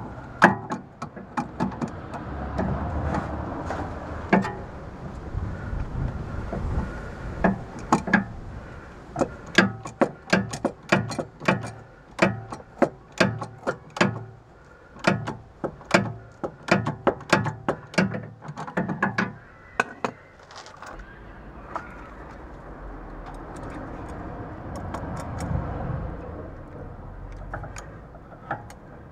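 Sharp metallic clicks and clinks, irregular at roughly two a second through the first twenty seconds, from hand tools and locking pliers worked on a BMW E46 front sway bar end link. A low steady hum lies underneath.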